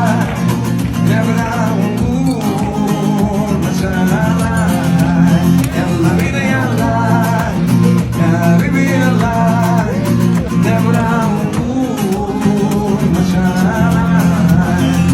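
Live serenade: acoustic guitar playing steady chords under a voice singing a winding, ornamented melody.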